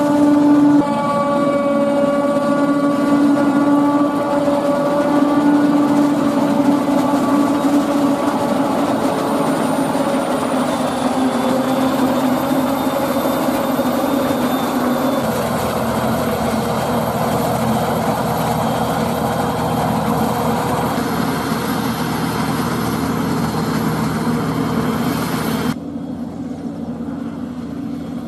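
Claas Jaguar 940 forage harvester running under load as it chops standing corn: a steady engine drone with a high whine over it, mixed with the tractor running alongside. The sound changes abruptly about halfway through, and again near the end, where it turns duller and a little quieter.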